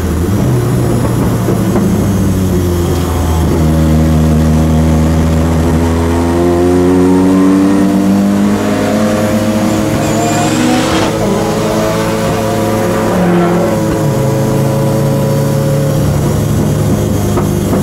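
Turbocharged 16-valve Peugeot 205 engine heard from inside the car on track. The revs climb steadily for several seconds under acceleration, then drop sharply about two-thirds of the way through, with a rising whistle and a short hiss. It then runs at steadier revs.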